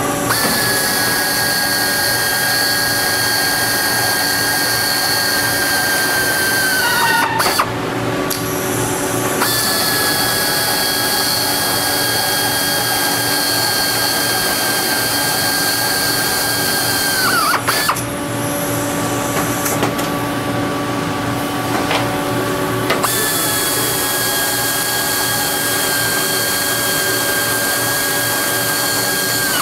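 Pneumatic air drill whining at a steady high pitch in three long runs, drilling through pilot holes in an aluminium wing skin into the wing spar. Each run ends with the pitch sagging briefly before the drill stops.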